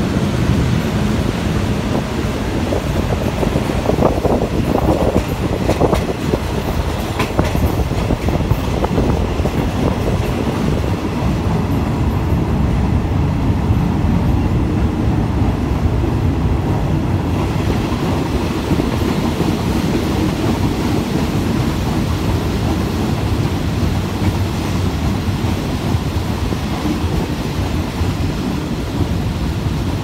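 Passenger train running on the line, heard from inside a carriage with open windows: a steady rumble of wheels on the rails, with a few knocks and clatters about four to eight seconds in.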